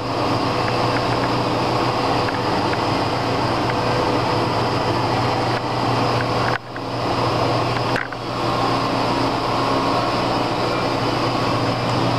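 Steady machine-shop background hum and whir: a low, even hum with a few fixed tones over a constant noise, dipping briefly twice, about six and a half and eight seconds in.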